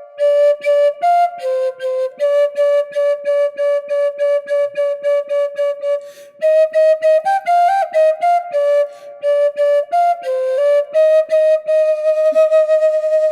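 Solo wind-instrument melody, flute-like, played in quick runs of short repeated notes and settling on one long held note near the end.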